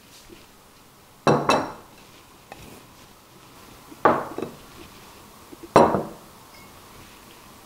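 Glassware and a utensil being set down on a wooden table: a quick double clink about a second in, then two more single clinks, each with a short ring.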